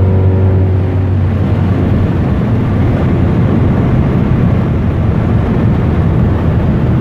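Steady, loud road and wind rumble inside a car at speed, the Mercedes CLS 55 AMG. A faint engine note fades out within the first second.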